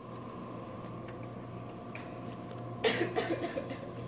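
Light typing on a laptop keyboard, faint scattered key taps over a steady electrical hum, with one short louder noise about three seconds in.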